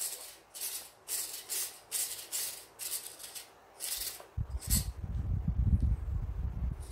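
Small RC steering servos of a four-wheel-steer RC truck buzzing in short repeated strokes, about two a second, as the wheels are steered back and forth. From about four seconds in a low, uneven rumbling rattle joins in.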